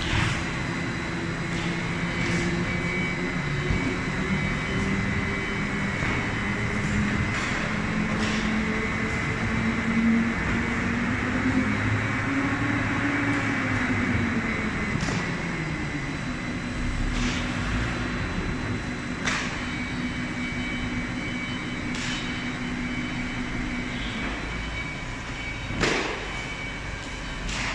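Spindle veneer rotary lathe running, its drive giving a hum that slowly rises in pitch, drops back about halfway through and then holds steady, with sharp knocks every few seconds.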